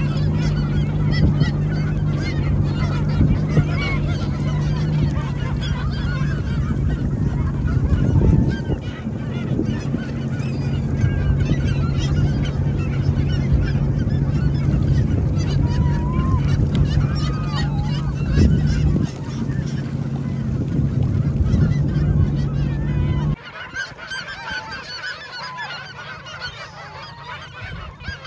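A large flock of gulls calling and squabbling, many overlapping short calls, over the steady low hum of a Sea-Doo personal watercraft's Rotax engine idling. The engine hum drops out a few seconds before the end, leaving the gull calls alone.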